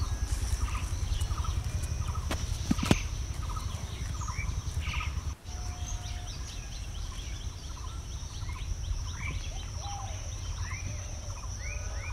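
Birds calling over and over in short, repeated calls, some rising chirps among them, over a steady high insect drone and a low rumble.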